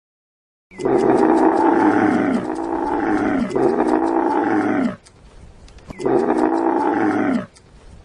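Big cat roaring: four long roars, each falling in pitch. The first three run back to back; the last comes after a short pause.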